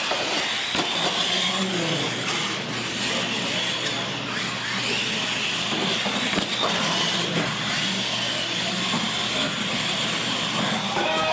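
Two radio-controlled monster trucks racing flat out side by side, their electric motors and gear drives giving a steady high whine that fades near the end.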